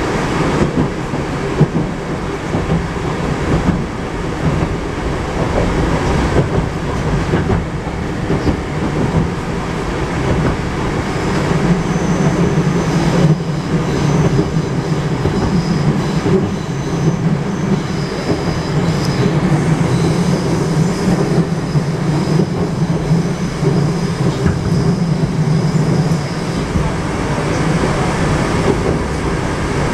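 Moscow metro train type 81-765.2 running between stations, heard from inside the car: steady running noise with rail clatter. A low hum grows stronger about a third of the way in, with a faint high-pitched whine over it until near the end.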